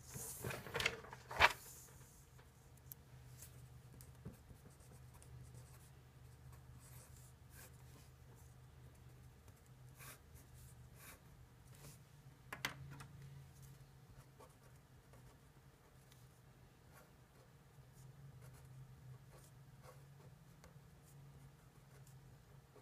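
Pen writing on paper: faint scratching strokes over a low steady hum. A burst of paper handling with a sharp tap comes in the first two seconds, and another tap about twelve and a half seconds in.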